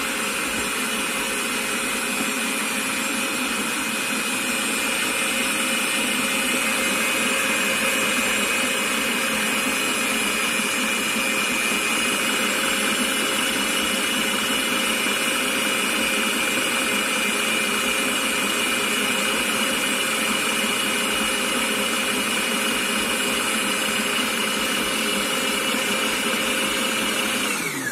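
Electric stand mixer motor running steadily with a constant whine, its flat beater churning a thick, half-frozen mango ice-cream mixture in a stainless steel bowl. Right at the end the mixer is switched off and the whine drops in pitch as it winds down.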